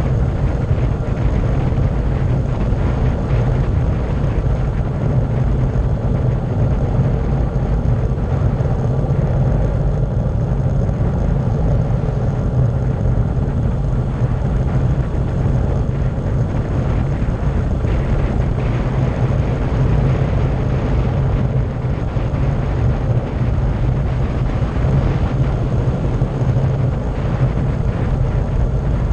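Steady, loud wind rush and low rumble on the camera's microphone during a fast downhill ride on a bike, with tyre noise from the road.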